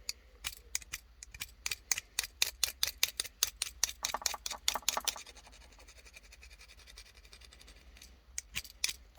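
Quick scratchy scraping strokes, about three or four a second, made while cleaning for a soldering job. They stop about five seconds in, leaving a faint hiss, and a few more strokes come near the end.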